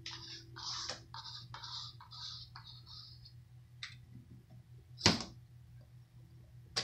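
A small pet sneezing once, short and sharp, about five seconds in. Before it comes a run of soft, short hissy sounds, over a faint steady hum.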